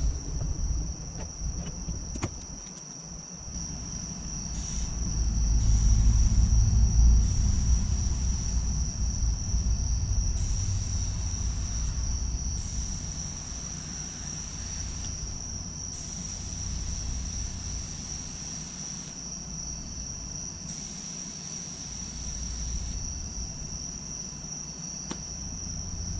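Crickets chirping in a steady high-pitched chorus over a low rumble that swells about five seconds in and slowly fades.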